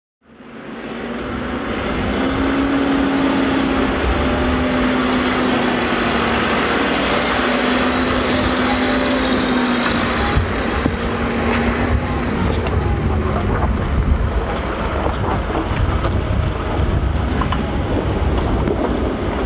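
Engine of a heavy recovery machine running steadily as it lifts a crashed off-road buggy, with a hum that wavers slightly and fades out about two-thirds of the way through, under strong wind noise on the microphone.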